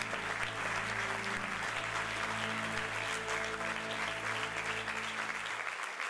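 A theatre audience applauding, starting suddenly and holding steady, with instrumental music playing softly underneath that stops shortly before the end.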